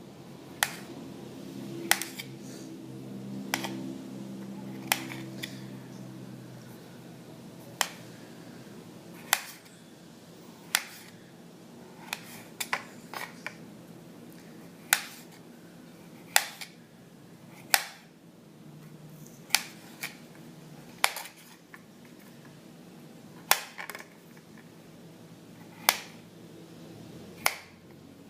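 Kitchen knife cutting potatoes on a cutting board: single sharp knocks of the blade meeting the board, about one every second or so at an uneven pace.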